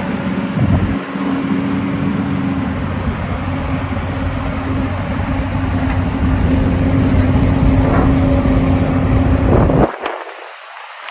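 Hyundai R230L excavator's diesel engine running with a steady hum, growing louder over several seconds, then dropping away suddenly near the end.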